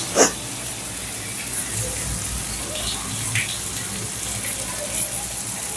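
Paneer tikka skewers sizzling steadily in butter on a hot nonstick tawa over medium flame, with a light knock near the start and a few small taps as they are handled.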